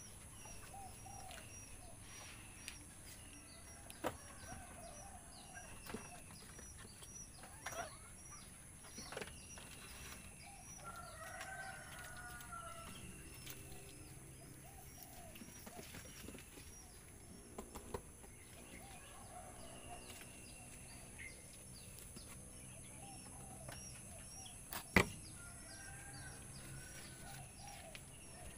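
Yard ambience: chickens clucking and a small bird's high chirp repeating about once a second, with a handful of sharp knocks, the loudest about 25 seconds in.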